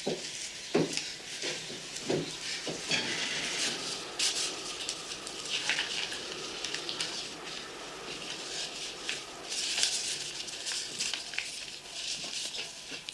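Paper rustling and crackling as an envelope is opened and the documents inside are handled and leafed through, with a few soft knocks in the first three seconds.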